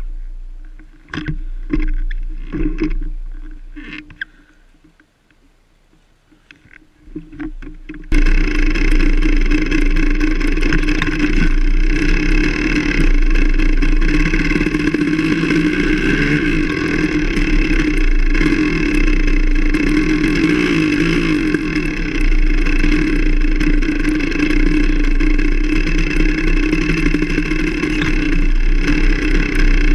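Enduro motorcycle's engine heard from on board: scattered knocks and clatter over a low, fading engine sound for the first few seconds, then about eight seconds in the sound jumps abruptly to the engine running loud and steady as the bike rides the trail.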